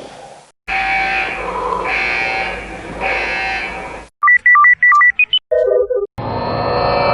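A string of short comic sound effects: three swelling pitched calls about a second apart, then rapid electronic beeps hopping between two pitches and stepping upward, a quick falling run of lower beeps, and a sustained chord starting near the end.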